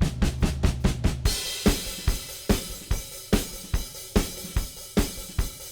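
Drum kit playing a rock beat: a fast, even run of hits over a low bass note for about the first second, then a steady beat of kick drum and snare with cymbals.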